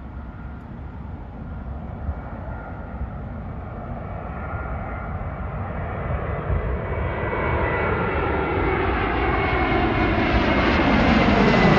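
Airbus A321neo jet engines on final approach, growing steadily louder as the airliner passes low overhead. A high fan whine rides over the rushing engine noise.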